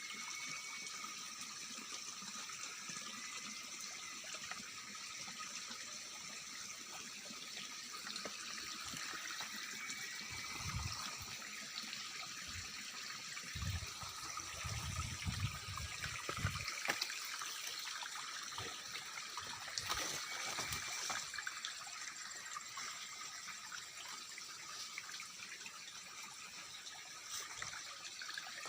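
Night-time chorus of insects in a durian orchard: several steady high buzzing and trilling tones layered together, with a short rising chirp repeating every few seconds. There are a few dull low thumps around the middle.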